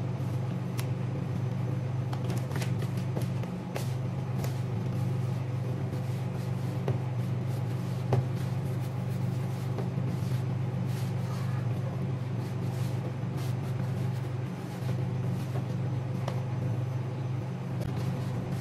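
Hands kneading soft bread dough in a plastic bowl: scattered soft slaps and knocks against the bowl over a steady low hum.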